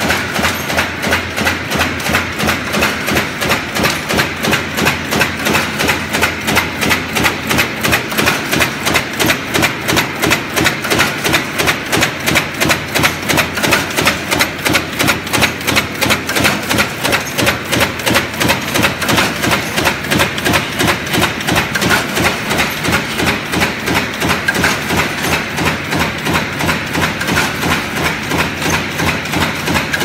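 High-speed aluminum fin press running continuously, its punch stamping aluminum foil strip into heat-exchanger fins in a fast, even rhythm of sharp clattering strokes.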